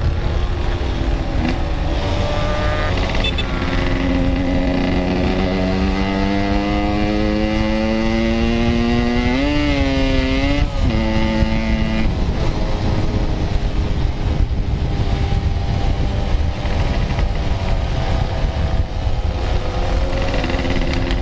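Yamaha RX-King single-cylinder two-stroke motorcycle engine running under way, its revs climbing steadily for several seconds, wavering, then dropping back about halfway through.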